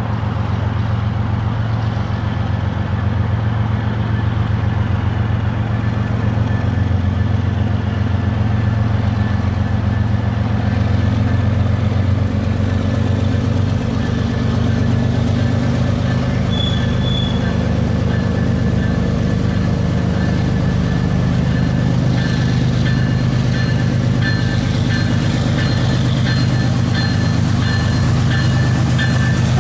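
GE ES44AC diesel-electric locomotive leading a double-stack intermodal train, approaching under power with a steady low engine drone that slowly builds.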